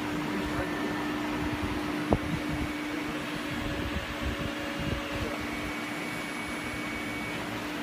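STM8080 4-axis CNC router running with no workpiece: a steady whirring hum with one held tone, while higher whines come and go as the axis drives tilt and move the spindle head. One sharp click about two seconds in.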